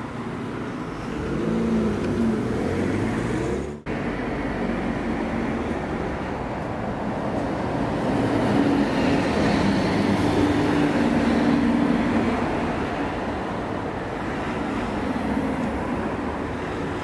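City road traffic: cars and a bus driving past, loudest in the middle as the bus passes close by.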